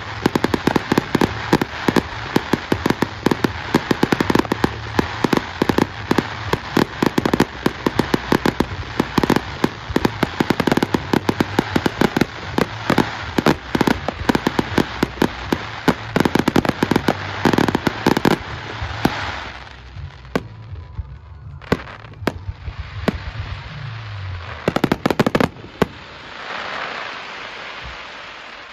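Fireworks finale: a dense barrage of rapid bangs and cracks from aerial shells for about eighteen seconds, thinning to a few single loud bangs, then a steady rush of noise near the end.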